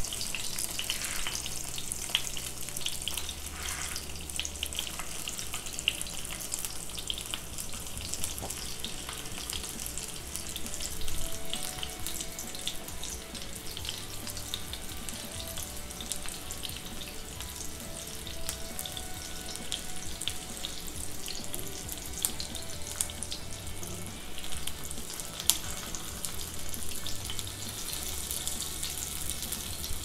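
Chicken seekh kebabs sizzling as they shallow-fry in oil in a nonstick pan: a steady crackle with sharper pops here and there.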